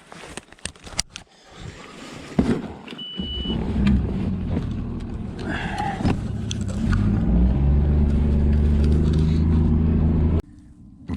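Bass boat's outboard motor starting and coming up to speed, then running steadily, after a few clicks and knocks of gear in the boat; a short high beep sounds about three seconds in. The motor sound cuts off suddenly near the end.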